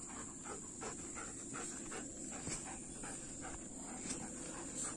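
German Shepherd dog panting, a faint quick rhythm of about three to four breaths a second.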